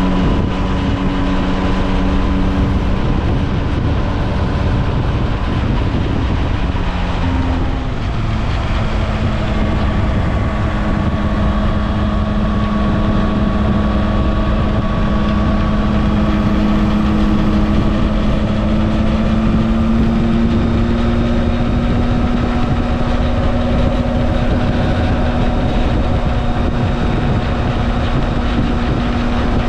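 Motorcycle at road speed heard from the bike itself: heavy wind rush over the microphone with the steady drone of the Yamaha Tracer 9 GT+'s three-cylinder engine. About eight seconds in the engine note shifts to a new pitch, then creeps slowly higher.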